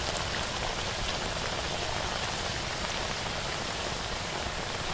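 Quicklime slaking with water in a metal basin: the slurry boils up from the heat of the reaction and gives a steady fizzing hiss.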